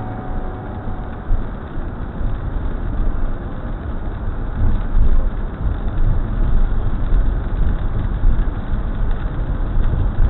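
Car driving on a wet road, heard from inside the cabin: a steady low rumble of engine and tyres with a hiss of water on the pavement.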